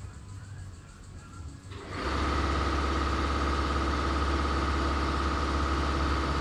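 A motor starts suddenly about two seconds in and runs steadily, with a low hum and a high whine over it.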